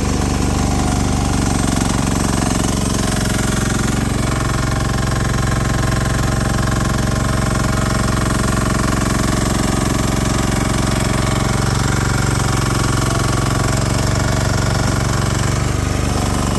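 Small engine of a 1-ton mini excavator (about 10 horsepower) running steadily at working speed.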